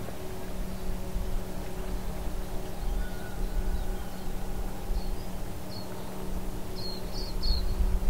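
Steady low hum of a distant boat engine over a low rumble, with a few short, high bird chirps in the last three seconds.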